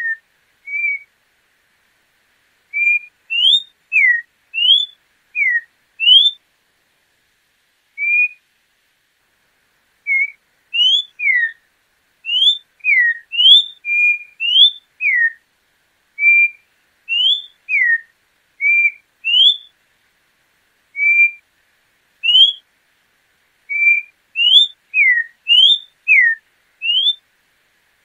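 Orange-backed troupial (joão-pinto) singing: a long series of short, clear whistled notes, some rising, some falling and some level, given in phrases of a few notes with short pauses between them.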